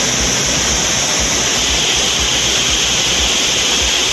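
Steady rushing of a waterfall in flood, heavy water pouring at Courtallam Main Falls.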